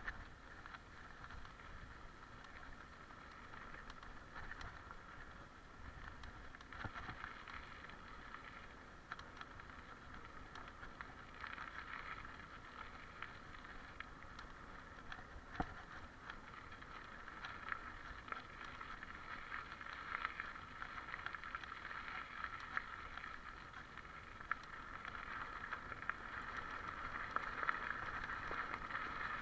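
Mountain bike rolling over a grassy dirt trail: steady tyre noise with many small clicks and rattles from the bike over bumps, louder near the end.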